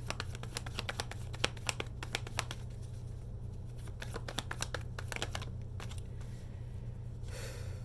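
Tarot cards being shuffled by hand: quick runs of flicking cards through the first couple of seconds and again around five seconds in, with a short rustle near the end, over a steady low room hum.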